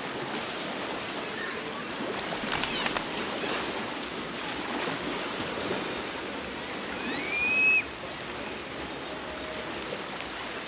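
Baltic Sea surf washing steadily on a beach. About seven seconds in, a short high cry rises and then holds before cutting off; it is the loudest sound here.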